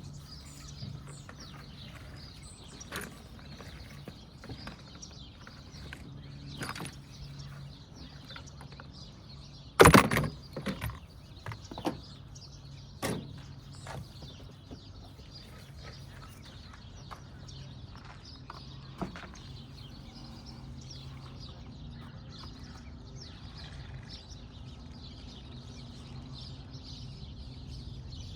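Scattered clicks, knocks and clanks of hand tools and parts as the fuel lines are taken off a Predator 3500 generator's carburetor, the loudest knock about ten seconds in. A low steady hum and faint bird chirps run underneath.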